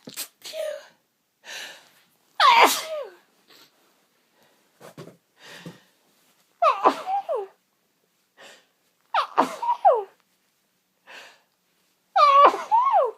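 A person sneezing four times, each sneeze a short, loud vocal burst falling in pitch, about three seconds apart, with quieter breaths between them.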